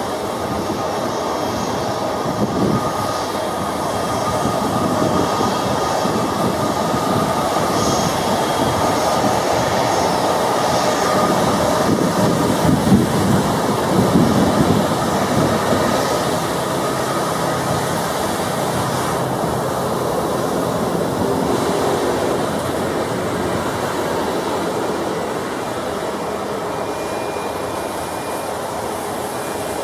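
Super Air Jet Airbus A320's jet engines running at taxi power as it rolls along the runway: a steady jet noise with a faint high whine, swelling a little about halfway through.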